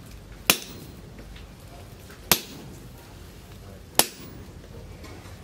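Three separate hammer blows on steel, about two seconds apart, each with a brief metallic ring.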